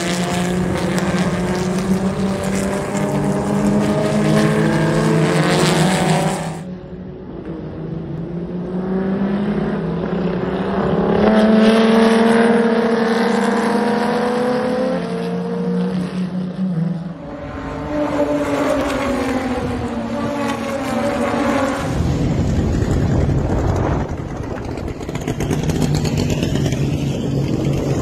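Chevrolet Opala race cars at racing speed, their engines rising and falling in pitch as they accelerate, shift and pass by. The sound changes abruptly three times, about a quarter, three-fifths and four-fifths of the way through, where shots of the pack and of single cars are cut together.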